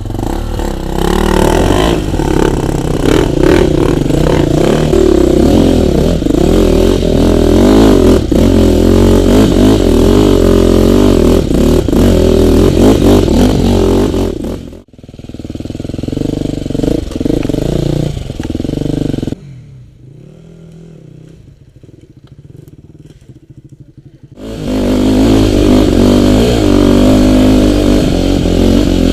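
Off-road enduro motorcycle engine revving and pulling hard, its pitch rising and falling, with clattering knocks over it. The sound cuts off abruptly about halfway through, returns briefly, drops to a faint background for several seconds, then the engine comes back loud near the end.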